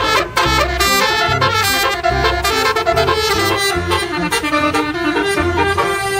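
Upbeat jazzy background music with horns over a steady bass line.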